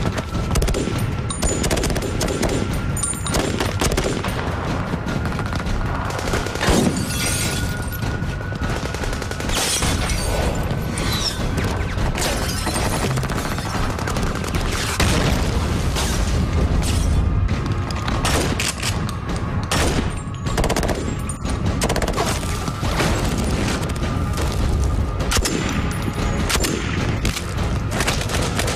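Film battle soundtrack: sustained automatic rifle fire and heavy booms, with a musical score running underneath.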